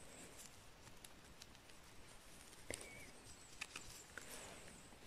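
Faint scraping and a few small clicks as a knife trims the stem base of a chanterelle mushroom held in gloved hands.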